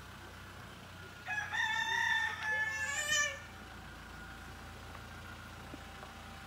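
A rooster crows once, a single call of about two seconds starting a little over a second in.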